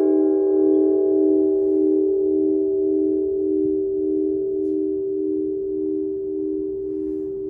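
Church bell ringing dying away with no new strikes: a deep hum that pulses slowly about twice a second, its higher overtones fading first.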